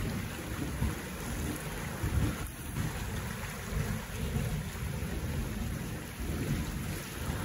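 Swollen floodwater churning and rushing past a concrete wall, a steady noisy rush with an uneven low rumble.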